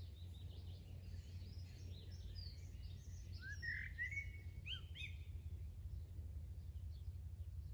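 Birds singing and chirping, many short calls overlapping, loudest a few seconds in with quick rising and falling phrases. A steady low hum runs underneath.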